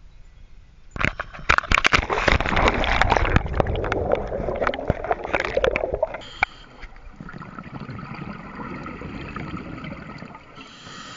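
Water churning and bubbles rushing against an underwater camera, loud and crackling with many sharp clicks for about five seconds. Then a quieter steady underwater wash with faint high tones.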